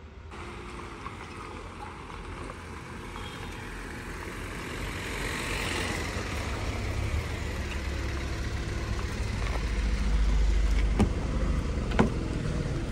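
Hyundai i20 hatchback's engine idling, a steady low rumble that grows louder, with two sharp knocks about a second apart near the end.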